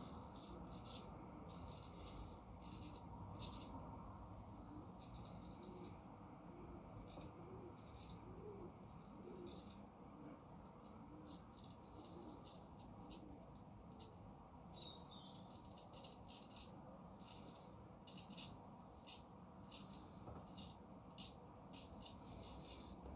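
Straight razor scraping lathered stubble in short, repeated strokes: a faint dry rasp, coming in quick runs with brief pauses between.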